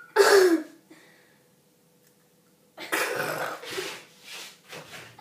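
A girl gagging and coughing at a mouthful of barbecue sauce: a short loud groan that falls in pitch right at the start, a pause, then a longer spell of coughing and spluttering about three seconds in.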